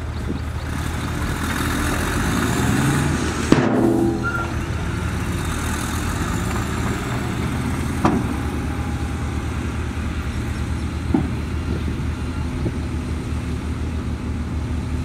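Heavy diesel earthmoving machinery running steadily, with a few sharp metallic knocks: a loud one a few seconds in and smaller ones later.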